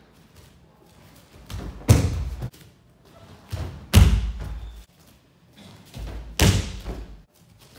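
Ko soto gake judo throw done three times, about two seconds apart. Each is a short scuffle of feet and jackets followed by a heavy thud as the thrown judoka lands on his back on the judo mat.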